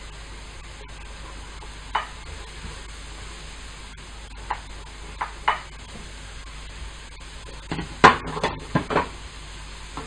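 Wooden spatula scraping diced carrots off a plate into a frying pan, with a few separate knocks, then a quick run of louder clacks against the pan about eight seconds in as stirring starts. A low sizzle of vegetables frying in butter runs underneath.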